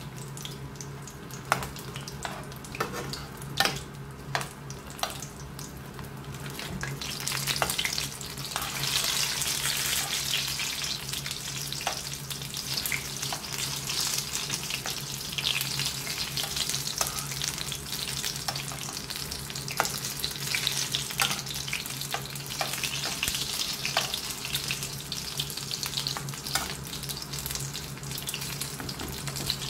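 Spring rolls shallow-frying in hot oil in a nonstick pan, sizzling and crackling, with sharp clicks of a metal spoon against the pan as they are turned. The sizzle grows louder and denser about seven seconds in.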